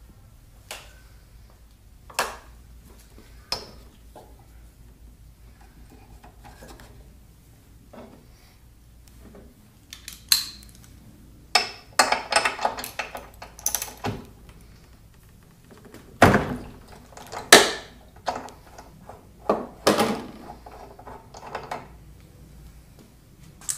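Socket wrench removing the spark plug from a Briggs & Stratton L-head mower engine: scattered metal clicks and clinks, a run of rapid ratchet-like clicking around the middle, and several louder metal clanks a few seconds later.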